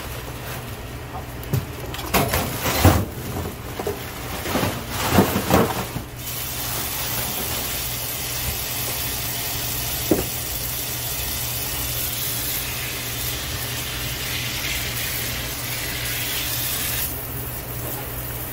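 Frozen, ice-glazed squid pieces tipped out of their bag into a stainless-steel sink, knocking and clattering against the steel for the first few seconds. Then the tap runs steadily onto the frozen squid to thaw it, and the water sound softens near the end.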